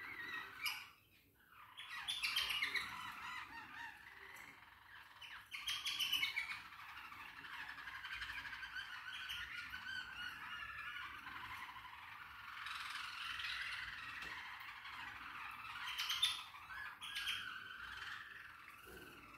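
Several small cage birds chattering and squawking nonstop, with louder spells of calls a few times.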